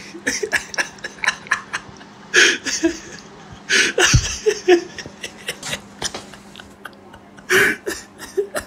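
Quiet laughter in a few short, breathy bursts, over scattered clicks and rustles of handling noise from the phone.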